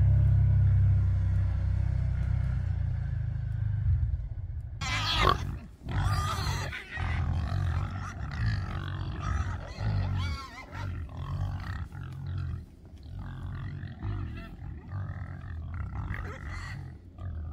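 Pigs grunting and squealing, hungry pigs expecting feed, with one loud squeal about five seconds in and frequent short grunts after it. A low engine rumble from the side-by-side UTV runs under the first few seconds and then stops.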